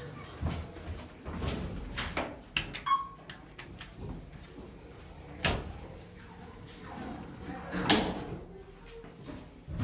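Otis elevator doors sliding, with a series of clunks and knocks, the loudest about eight seconds in.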